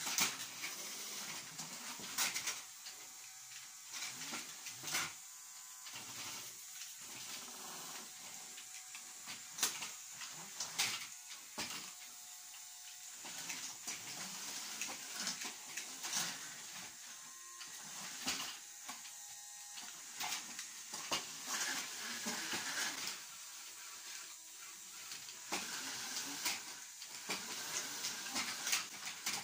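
Small Lego electric motors and gear trains whirring and whining as two Lego robots drive and shove each other, with frequent sharp plastic clacks and knocks as they collide.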